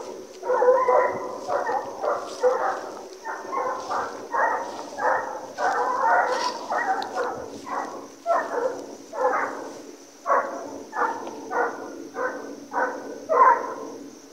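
A pack of American foxhounds baying in full cry, call after call about one to two a second, some voices overlapping: the hounds running a deer's scent trail.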